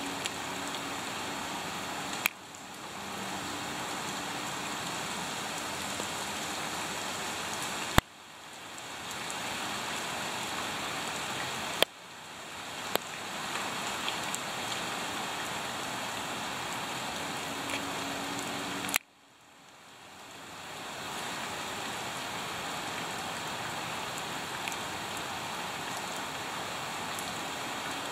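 Steady rain falling into a shallow puddle, an even hiss of drops hitting the water. A few sharp clicks break in, and after each one the rain sound briefly drops away and swells back.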